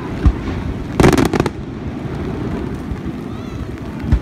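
Aerial fireworks shells bursting. A low boom comes about a quarter second in, then a quick run of sharp crackling reports about a second in, and another boom near the end, over a steady low background noise.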